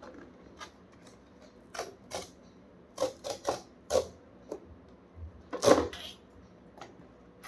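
Small cardboard product box being opened by hand: scattered clicks, taps and scrapes of the packaging, the loudest a little over halfway through.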